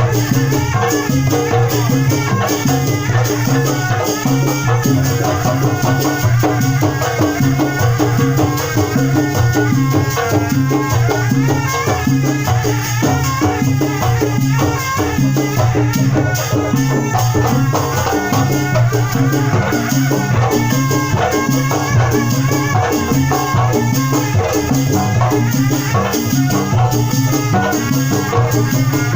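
Sundanese bangreng ensemble of traditional drums (kendang) playing a continuous, driving rhythm at a steady tempo, with pitched parts layered over the drumming.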